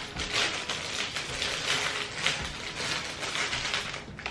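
Clear plastic packaging crinkling and rustling in irregular crackles as a plastic hard-shell laptop case is pulled out of it, easing off near the end.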